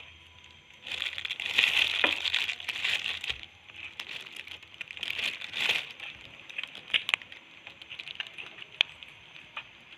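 Crinkling, crackling rustle in two louder spells, about one to three seconds in and again around five to six seconds in, with scattered sharp ticks in between and after.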